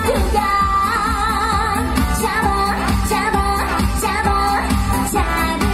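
Female trot singer singing live over a backing track through a stage PA, with a long wavering held note about a second in.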